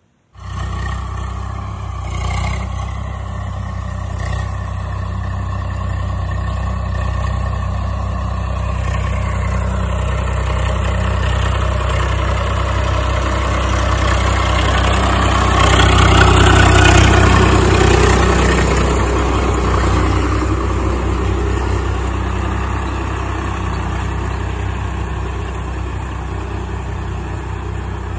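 Farm tractor's diesel engine running steadily while it drives a rotary tiller through the soil. The sound grows louder to a peak about halfway through, then eases off.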